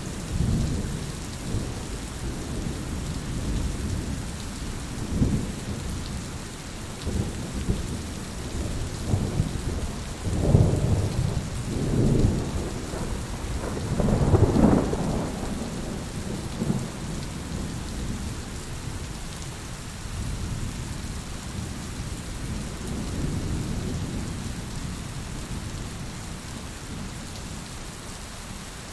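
Steady rain falling, with rolling thunder rumbling under it, loudest in a series of deep swells about ten to fifteen seconds in, then fading back to a low rumble.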